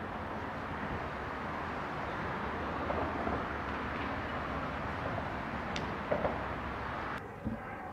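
Steady highway traffic noise from a nearby overpass, an even rumble and hiss, that drops off suddenly about seven seconds in. A couple of short clicks sound near six seconds.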